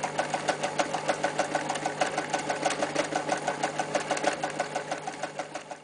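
Elna Stella TSP electric sewing machine stitching through a 3.5 mm thick leather belt: motor hum under a rapid, even needle clatter of about six stitches a second, getting quieter near the end.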